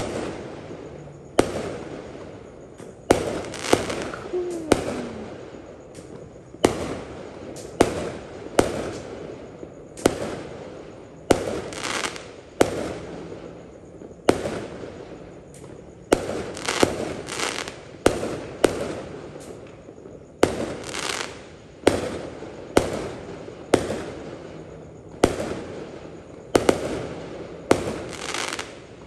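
Aerial firework shells bursting one after another, a sharp bang every second or two, each trailing off into a fading rumble and crackle.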